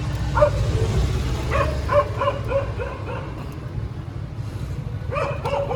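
A dog barking in short yelps, several in quick succession, over the steady low rumble of street traffic.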